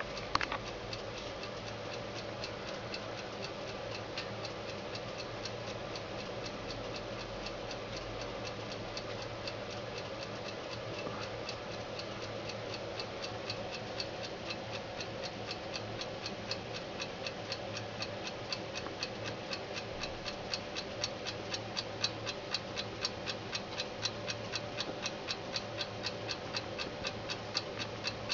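Mechanical alarm clock ticking: a fast, even run of ticks that becomes more distinct about halfway through, over a steady low hum.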